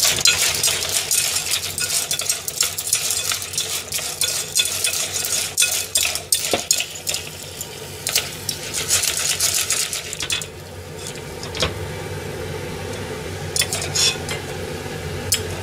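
Asari clams clattering against a stainless steel pot as they are stirred over high heat, with a sizzle from the white wine just added. The clatter is dense for about ten seconds, then drops to a few scattered clicks.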